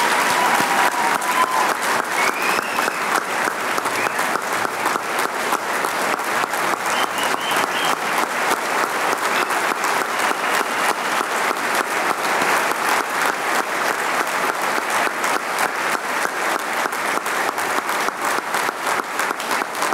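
A large audience applauding steadily, with a few faint cheers mixed into the clapping in the first several seconds.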